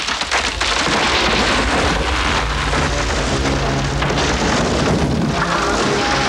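Film soundtrack: a loud, steady rushing roar like pouring water or strong wind, with sustained orchestral chords coming in about halfway through.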